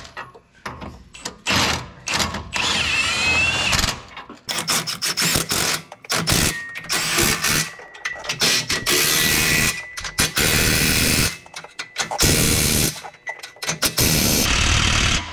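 Cordless impact wrench run in repeated bursts of about a second each, driving the nuts on a traction-bar bracket at a truck's axle.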